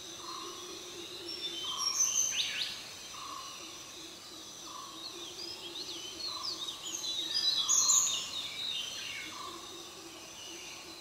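Several wild birds calling in forest, with quick chirps and sweeping whistles over a low note repeated about once a second. The calling is loudest about two seconds in and again near eight seconds.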